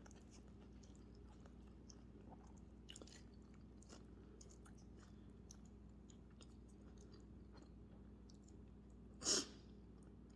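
Close-up mouth sounds of someone chewing noodles: faint, scattered wet clicks and smacks. About nine seconds in comes one short, loud, airy burst.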